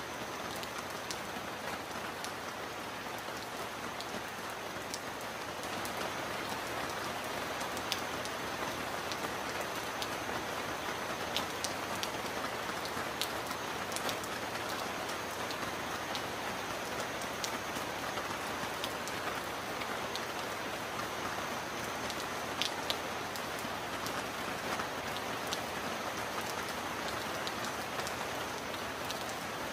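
Heavy rain falling steadily on a metal roof, with many sharp separate drop impacts ticking over the hiss. The rain grows a little louder about six seconds in.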